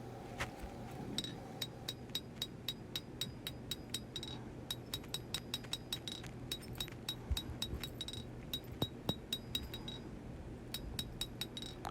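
Hammer blows on hot W-2 steel over an anvil as the knife's bevels are drawn out, a steady run of about three strikes a second, each with a short metallic ring. The hammering pauses briefly twice.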